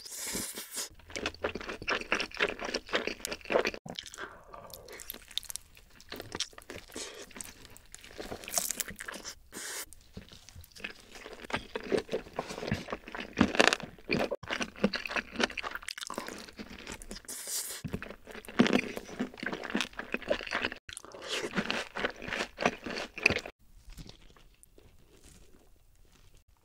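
Close-miked bites and chewing of glazed roast chicken: crackly crunching in uneven clusters as the meat is torn off the bone and chewed, quieter near the end.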